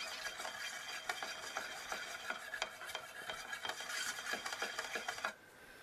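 A can of penetrating wood stain being stirred: rapid scraping and clicking against the inside of the can, which stops abruptly about five seconds in.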